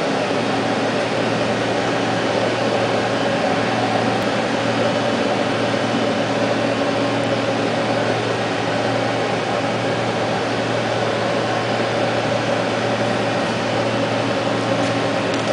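Steady hum with a constant low drone and fan-like hiss from a powered-up Dahlih DL-MCV1020B CNC vertical machining center standing idle.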